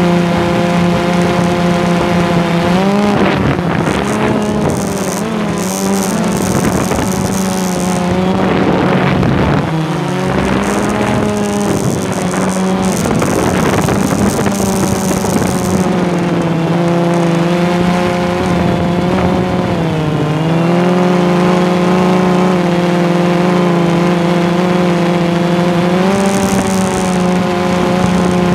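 RC model airplane motor running steadily, heard from aboard the plane, its pitch dipping and climbing back several times as the throttle is eased and opened.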